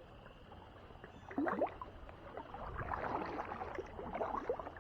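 Kayak paddle strokes in shallow water: splashing, with dripping and gurgling, starting a little over a second in and going on irregularly.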